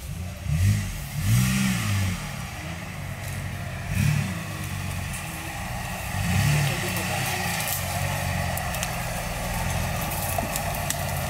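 Jeep Wrangler's engine revving in four short rises and falls as it climbs out of a muddy gully under load, then running more steadily near full pull.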